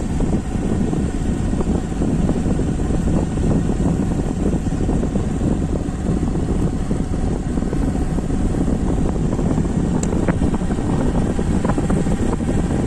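Motorcycle riding along a road: a steady rumble and rush of engine and wind noise, even throughout.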